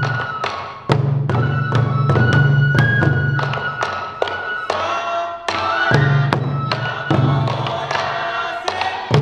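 Sansa odori festival music: many taiko drums struck in a brisk, steady rhythm, with a bamboo flute playing the melody over them.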